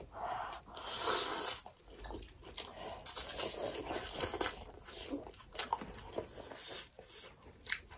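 Noodles being slurped up and chewed at close range: several noisy slurps, the longest about a second in and again around three to four seconds, among short wet clicks of chewing.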